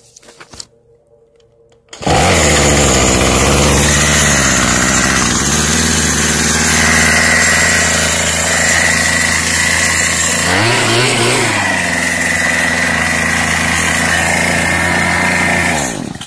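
Craftsman string trimmer's small engine starting on one pull about two seconds in and then idling steadily on its own, its carburetor adjustment screws newly slotted for a flathead screwdriver to cure a failure to idle. Its pitch rises briefly a little past the middle, and the engine cuts off suddenly near the end.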